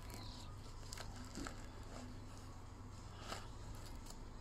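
Faint rustling and crinkling of crumpled paper towel being pulled apart by hand, with a few brief crackles, as it is unwrapped from around an egg.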